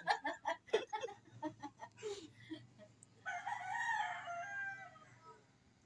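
A rooster crows once, a single long call of about two seconds starting a little past the middle.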